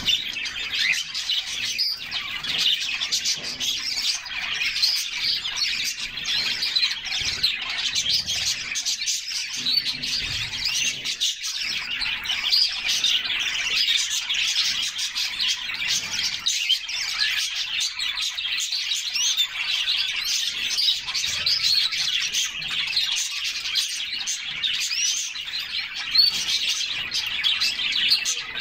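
A group of canaries chirping and singing together, a dense, continuous chatter of many overlapping quick high chirps and trills.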